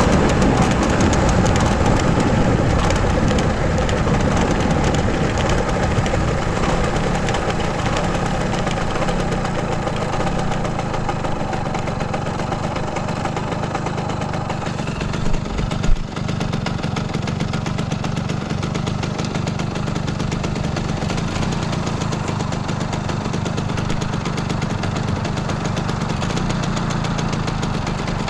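Simson S51 moped's single-cylinder two-stroke engine running, easing down and then idling steadily. One short sharp knock about halfway through.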